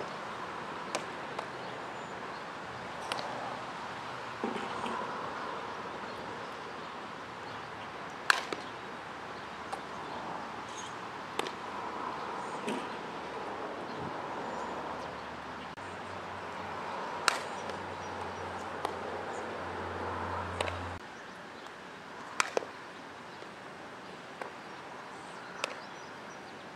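Sharp knocks every few seconds from a bat hitting softballs and balls smacking into leather gloves, over a steady outdoor hiss.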